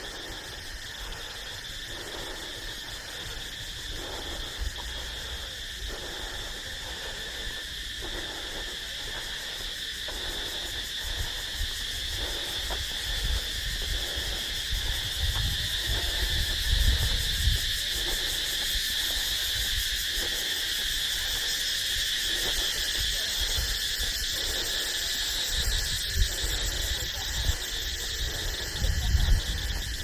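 Steady chorus of crickets and other insects trilling in tropical vegetation, with the walker's footsteps on a concrete path at an even pace. A few low rumbles on the microphone come around the middle and near the end.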